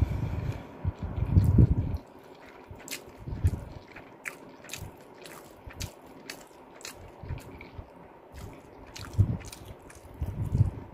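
Eating sounds: chewing close to the microphone for the first two seconds and again near the end. In between come light, sharp clicks of chopsticks against a plate as stir-fried ramen noodles are picked up.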